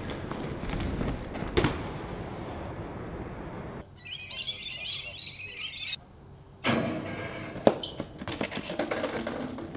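BMX riding noise, tyres rolling on hard ground, with two sharp impacts of landings or hits, about one and a half seconds in and near eight seconds. Briefly in the middle, birds chirp over a quieter background.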